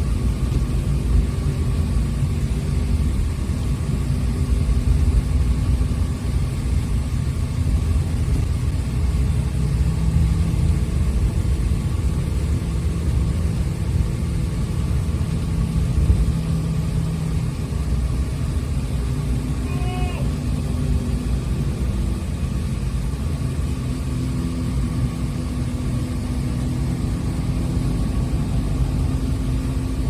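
Bus engine running and road rumble heard from inside the moving bus, the engine note shifting as it changes speed. A brief high-pitched squeak about two-thirds of the way through.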